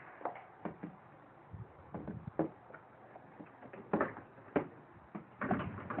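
Scattered soft clicks, knocks and rustles of a phone being handled and moved about, with a slightly louder rustle about four seconds in and again near the end.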